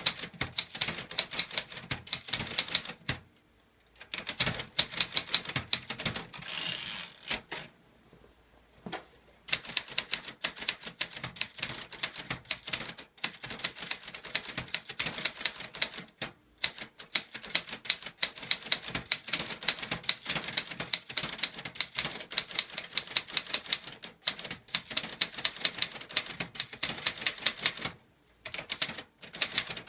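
Clover Top Star 10s Korean typewriter being typed with no ink ribbon fitted: rapid runs of key strokes and typebar strikes, broken by a few short pauses.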